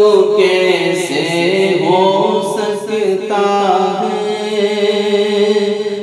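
A man singing a naat, an Urdu devotional poem, with no instruments heard, holding long notes that glide up and down in pitch.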